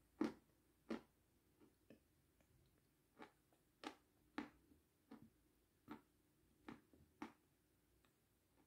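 Faint, close-miked mouth sounds of eating sour cream with meringue: short wet chewing clicks and lip smacks, about one or two a second, spaced unevenly.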